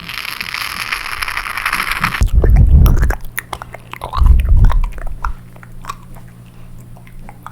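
Close-miked wet mouth sounds. A hissing, slurping stretch of about two seconds gives way to two heavy low thumps on the microphone, then scattered small wet clicks and smacks of lips and tongue.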